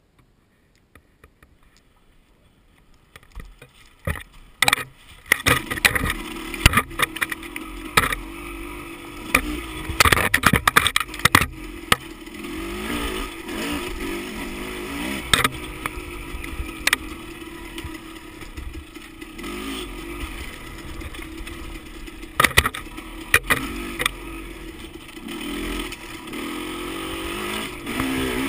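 Dirt bike engine running and revving up and down, with sharp clattering knocks from the bike over a rough trail, heaviest in the first half. The first three seconds or so are very quiet before the engine sound comes in.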